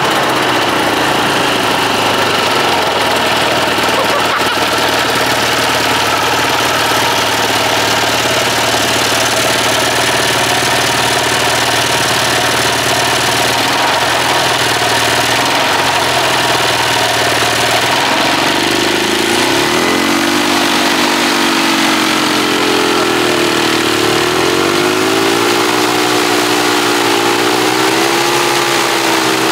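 Hirth two-stroke ultralight airplane engine running with its propeller spinning, a steady loud drone. From about two-thirds of the way in, its pitch rises and wavers up and down as the throttle is worked.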